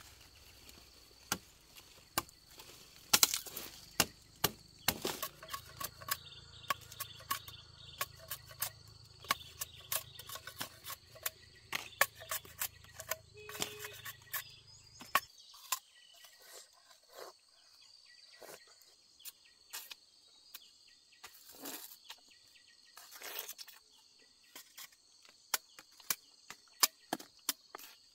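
Irregular sharp snaps, cracks and rustles of sugarcane stalks and dry leaves being cut and handled, over a steady high drone of insects. A low hum underneath stops about halfway through.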